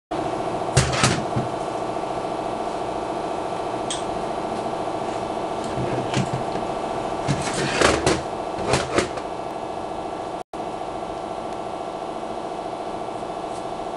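A steady machine hum, with a handful of knocks and clunks near the start and again in the middle as a cast aluminium automatic transaxle case is handled on a steel workbench.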